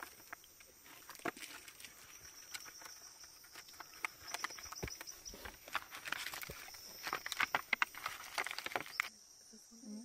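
Dry crackling and rustling as a leaf and crumbled breu branco resin are rubbed between the fingers, loudest in a run of sharp crackles towards the end, over a steady high insect chirring that pulses now and then. Both cut off suddenly about a second before the end.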